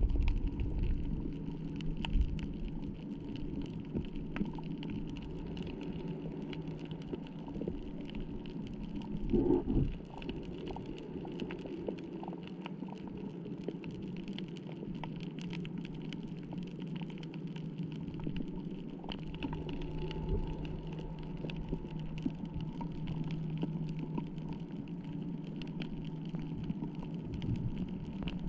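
Underwater ambience over a shallow coral reef: a steady low hum with many faint clicks and crackles, and a brief louder swell about nine and a half seconds in.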